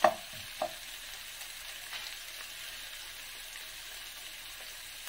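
Sliced onions sizzling steadily in oil in a nonstick wok. A spatula knocks sharply against the pan twice in the first second, then the sizzle carries on alone.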